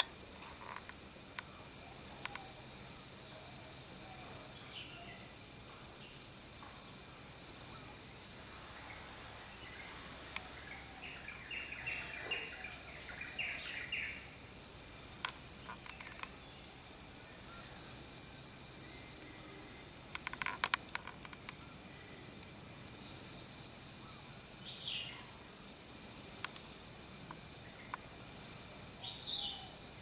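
Oriental magpie-robin giving a short, high, curling whistle over and over, about once every two to three seconds, over a steady high-pitched hiss. A brief scratchy chatter comes near the middle.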